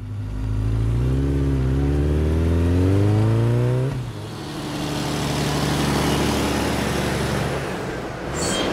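Sport motorcycle engine revving, its pitch climbing steadily for about four seconds as it accelerates. It then drops to a lower note under a rush of noise that swells and fades as the bike rides off. A short high hiss comes near the end.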